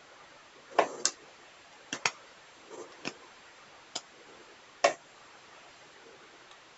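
About eight sharp clicks and clacks at irregular intervals, from tools and 18650 lithium-ion cells being handled while a battery pack is taken apart. The loudest come about a second in and near the five-second mark.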